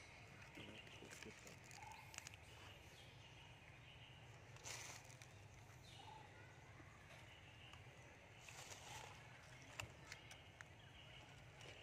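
Near silence: faint outdoor ambience with a low steady rumble, a few soft rustles and clicks, and a few faint short high notes.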